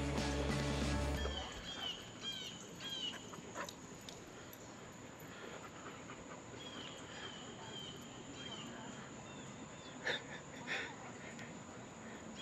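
Background music that stops about a second in, then birds chirping in short repeated bursts, and two short dog barks about a second apart near the end.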